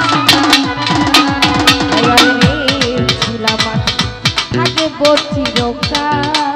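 Live Bangladeshi baul folk music. Hand drums play fast, about six strokes a second, and their bass strokes slide down in pitch, over held melody notes.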